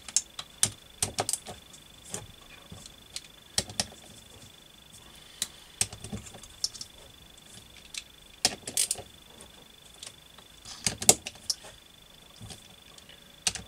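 Hand socket wrench tightening the bolts of a motorcycle engine's aluminium crankcase: scattered sharp metal clicks and clinks, some in short quick runs, as each bolt is nipped up in turn.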